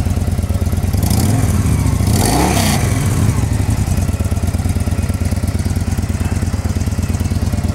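2014 Victory Judge's 1731 cc air-cooled V-twin idling steadily, freshly started and not yet warmed up. Between about one and three seconds in, its pitch rises and falls as the engine is briefly revved.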